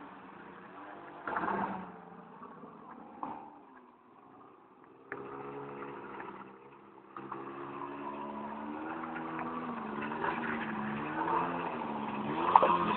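Small 50cc quad bike engine revving up and down as it is ridden around, its pitch rising and falling every second or so. It is faint at first, then grows louder as the quad comes close, loudest near the end.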